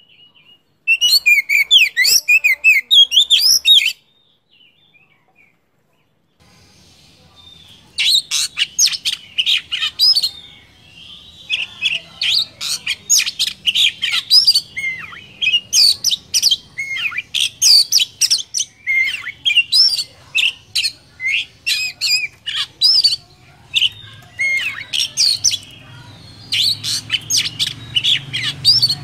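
Oriental magpie-robin singing. A quick run of varied whistled and chattering notes comes about a second in, then a short pause, then a long, almost unbroken song of varied whistles and trills over a faint low hum.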